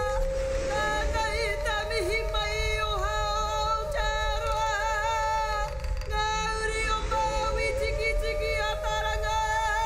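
Māori kapa haka women singing in loud, full voice: two voices holding long notes with a wavering vibrato, now and then gliding down, over a low rumble.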